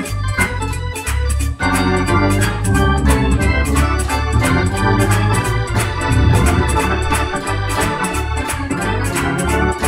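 Viscount KeyB two-manual Hammond-style organ played with both hands, chords and a melody over a strong steady bass line.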